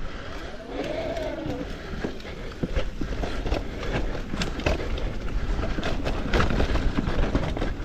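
Electric mountain bike ridden down rooty singletrack: steady tyre and wind rumble with many sharp knocks and rattles as it hits roots, and a brief rising-then-falling whine about a second in.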